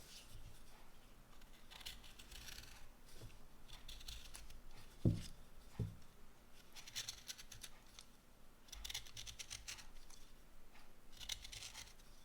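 Carving knife paring ginkgo wood by hand, in short scraping strokes that come in bursts of a few strokes each. There are two soft knocks about five seconds in.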